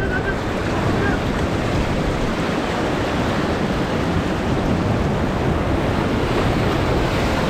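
Sea surf washing steadily on the shore, with wind rumbling on the microphone.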